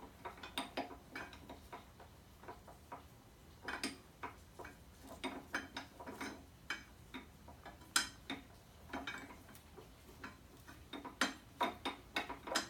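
A new motorcycle brake pad being worked into the brake caliper: irregular small metallic clicks and taps, metal on metal, as it refuses to slide smoothly into place.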